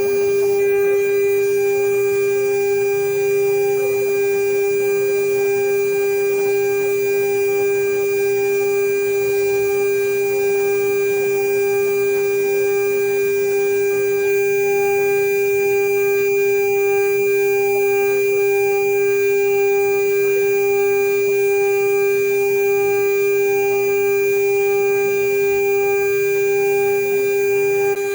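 CNC router spindle running with a steady high whine while it mills a marine aluminum dry-seal plate, with a faint cutting hiss beneath the tone.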